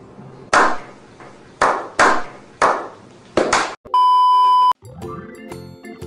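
Six short, sharp hissing bursts, each dying away quickly, then a flat, steady electronic beep lasting under a second about four seconds in. Background music starts right after the beep.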